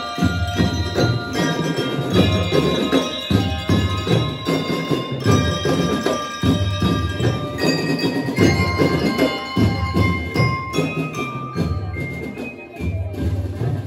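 Drum and lyre band playing: metal-barred bell lyres ring out a melody over a steady beat of marching snare and bass drums.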